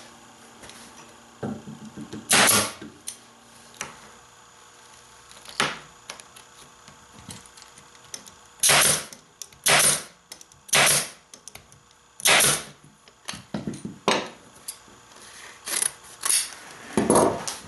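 Pneumatic upholstery staple gun firing staples through webbing into the wooden seat rail: about eight sharp shots at irregular intervals, each a short burst of air, with smaller handling clicks between. Shears cut through the webbing near the end.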